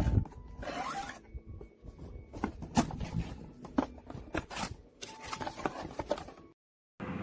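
Handling noises: a run of rustles, clicks and short scrapes, like a small object and its packaging being handled, stopping suddenly about six and a half seconds in.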